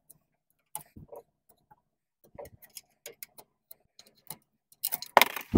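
A metal pry tool clicking and scraping against a Volkswagen air-cooled engine's oil strainer as it is levered out of the sump. Light scattered taps run throughout, then a louder scraping rattle comes about five seconds in as the strainer comes free.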